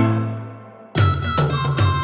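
Background music: a held note dies away, then about a second in a new piece starts abruptly with a steady drum beat.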